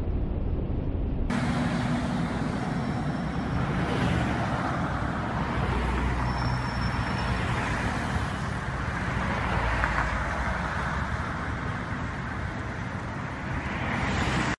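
Road traffic on a busy multi-lane street: a steady noise of cars passing. It is preceded for about the first second by a low wind rumble that cuts off abruptly.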